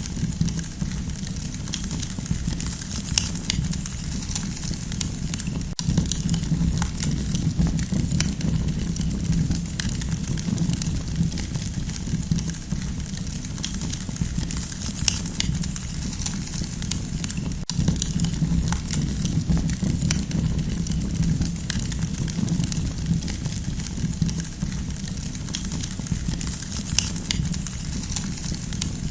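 Campfire crackling: frequent small pops and snaps, irregularly spaced, over a steady low rumble of the burning fire.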